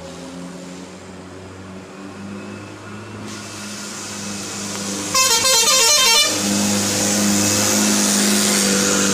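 An Indonesian intercity bus's multi-tone 'telolet' musical air horn plays a quick warbling tune for about a second midway. The bus's engine noise swells as it draws near.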